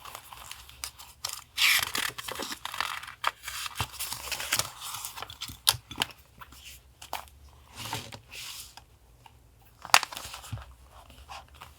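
Paper being handled for a journal collage: rustling and crinkling, with scattered sharp taps and clicks and a louder click about ten seconds in. A refrigerator hums low and steady underneath.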